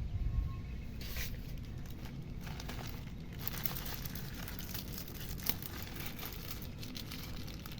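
Parcel packaging being handled and torn open by hand: crinkling, rustling crackles from about a second in, over a steady low rumble.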